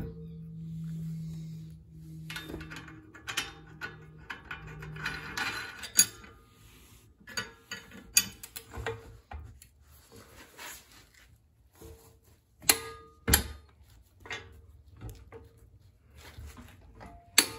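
Hand tools on a Dana 30 front axle knuckle: a run of scattered ratchet clicks and sharp metal knocks as the knuckle is refitted and its nuts tightened down.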